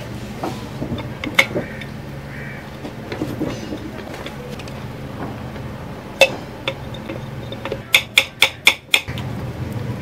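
Steel pliers clicking and clinking against the metal pin and clamp of a ceiling fan's down-rod fitting as the pin is worked out: a couple of single clicks, then a quick run of five clicks about eight seconds in.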